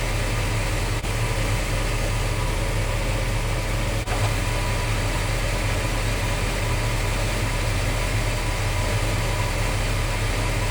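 1975 Chevrolet El Camino's engine idling steadily with the air-conditioning compressor engaged and running, under a steady broad hiss.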